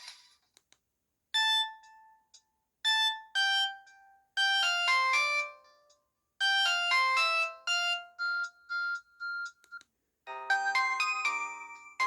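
Samsung GT-E1080W phone's built-in alert tones: short synthesized melodic phrases separated by brief silences, with quick runs of notes and then one note repeated rapidly about five times. After a short pause near the end, a different, fuller tone with lower chord notes begins.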